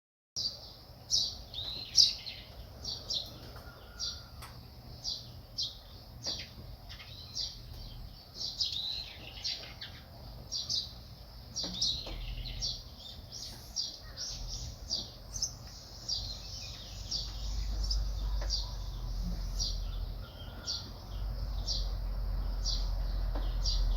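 Small birds chirping: many short high calls one after another, over a low steady rumble that gets louder in the second half.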